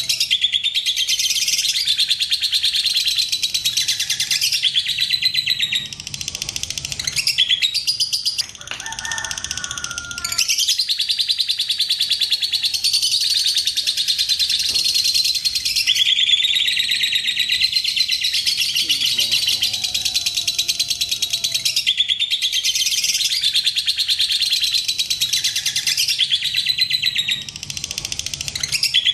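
Lovebird singing a long 'ngekek': a rapid, fast-ticking chatter of high chirps in unbroken runs of several seconds, with a few short breaks.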